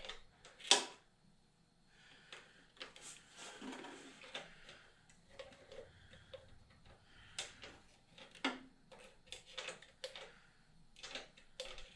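Metal thumb-pump oil can clicking as it is pumped, squirting motor oil into an engine's spark plug holes: light, irregular clicks, the sharpest just under a second in.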